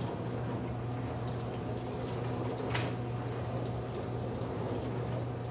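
Steady low hum and hiss of a kitchen with pans heating on the stove, with one short click a little past halfway.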